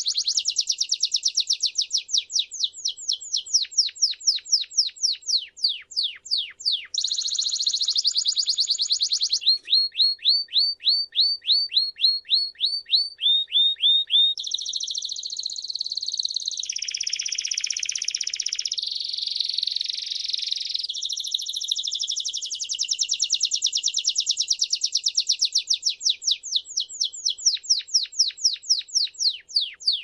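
Male Timbrado canary singing a long, unbroken song of rapid trills and rolls of repeated notes. About a third of the way in it switches to a run of clear, evenly spaced notes at about four a second, then goes back to dense rolls and fast trills.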